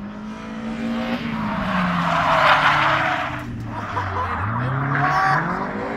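A car on a race circuit with its tyres squealing loudly. The squeal peaks about two and a half seconds in and again near five seconds. The engine note drops over a few seconds, then revs sharply back up about four and a half seconds in.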